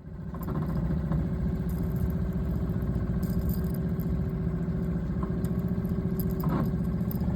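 A boat's pull-start outboard motor running steadily, with an even, low, fast-pulsing hum.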